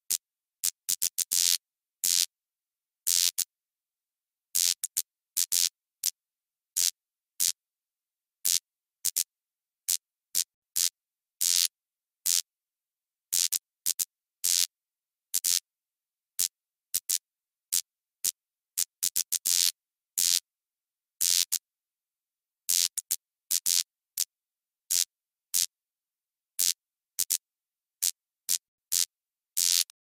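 Flickering neon light: a bright, hissy electrical buzz that cuts in and out at irregular moments, from short blips to bursts of about a second, with dead silence between.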